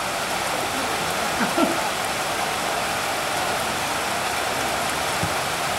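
Steady rain falling, a continuous even hiss, with a brief faint shout about one and a half seconds in.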